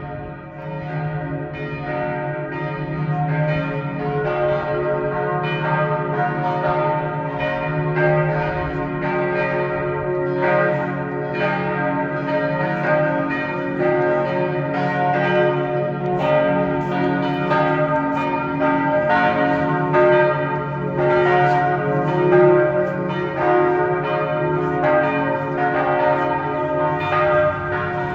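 Church bells ringing the noon peal, many strokes in quick succession with their tones overlapping and ringing on. The noon bells mark the hour of the crucifixion, a call to prayer.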